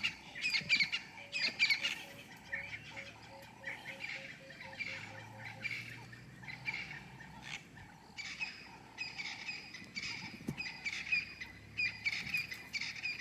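Animal chirping calls: quick series of short, high chirps, densest at the start, thinning out in the middle and picking up again over the last few seconds.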